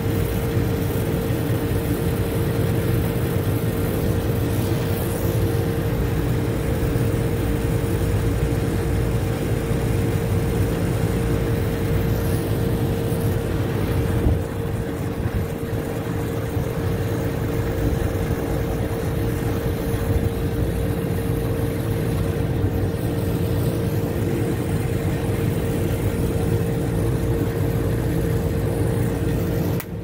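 Brazing torch flame burning steadily against a brass fitting on a copper refrigerant line, a continuous hiss with a low rumble and a steady hum underneath.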